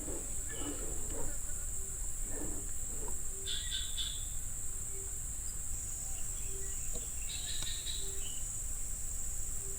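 Steady high-pitched insect drone, with two short clusters of bird chirps, one near the middle and one a little later, and a soft low note repeating about every second and a half.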